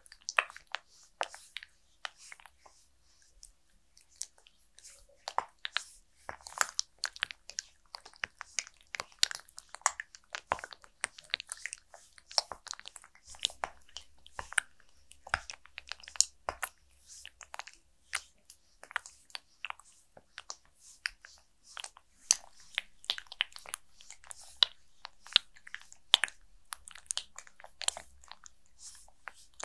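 Fingers massaging the slick, oiled face of a mannequin head close to the microphone: an irregular run of small wet, sticky clicks and crackles, several a second.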